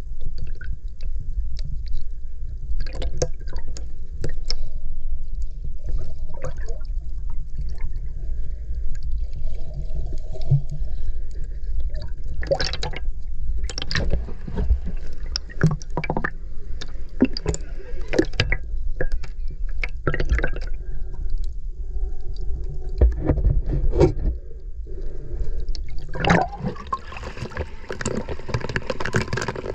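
Water heard through a camera held underwater: a constant low rumble of surge, with irregular bubbling and gurgling crackles. Near the end a broader rush of water comes in.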